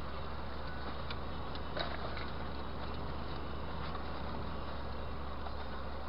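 Steady road and engine noise of a car driving, heard from inside the car, with a short click a little under two seconds in.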